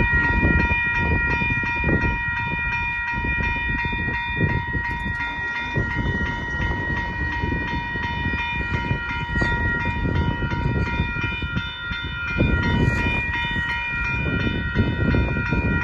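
Railroad grade-crossing warning bell ringing steadily at a high pitch, over the low rumble of an approaching train.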